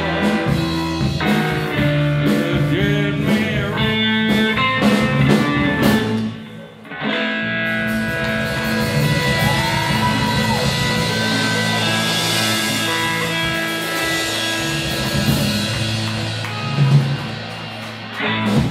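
Live blues band: electric guitar lead lines over bass and drums, a brief break about six seconds in, then a long held closing chord with cymbals ringing and a final accent near the end, the close of the song.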